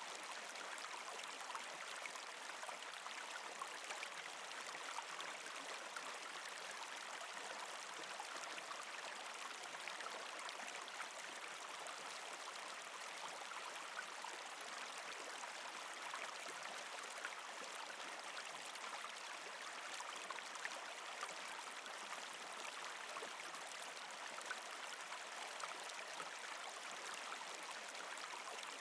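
A river's shallow water flowing and babbling, a steady rush with fine splashy detail.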